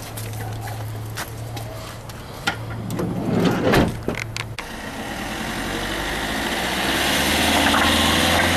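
Fiat Doblò van's engine idling under scattered clicks and knocks. About three and a half seconds in, its sliding side door is rolled shut. The van then pulls away, its engine and tyre noise growing louder as it drives past.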